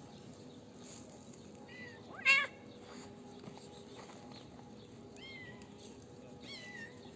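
Cats meowing: one loud meow about two seconds in, and several fainter meows later on.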